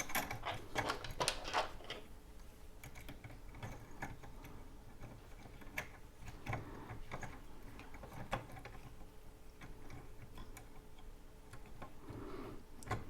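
Irregular light clicks and knocks of metal parts being handled as the extruder stepper motor is refitted to the 3D printer, thickest in the first two seconds and then scattered.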